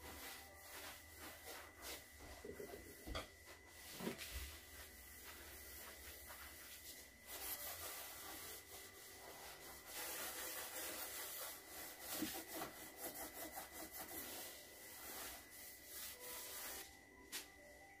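Faint rubbing of a cloth wiped back and forth over a wooden kitchen counter, with a few light knocks of things being moved on it.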